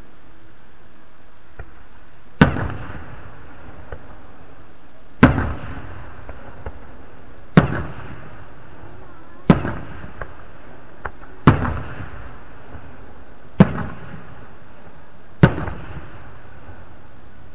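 Aerial fireworks shells bursting overhead: seven booms about two seconds apart, each followed by a short rumbling echo.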